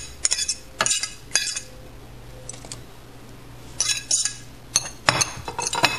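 A metal utensil scraping and clinking against a ceramic plate as chopped peppers and onions are pushed off it into a bowl. The clinks come in two spells, with a lull of about two seconds in the middle.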